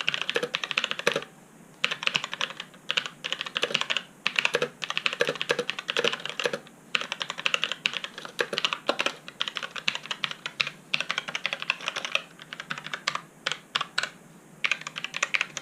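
Typing on a mechanical keyboard with Kailh brown switches: rapid runs of key clacks broken by short pauses. The switches are tactile and quieter than clicky ones, described as "not a very clicky key".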